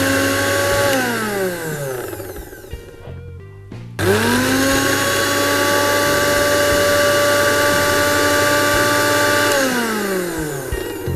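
Kitchen mixer grinder running on Malabar nut leaves and a little water, grinding them to a paste. About a second in the motor's whine falls in pitch and dies away as it is switched off. About four seconds in it starts again with a quickly rising whine, runs steady, and winds down again near the end.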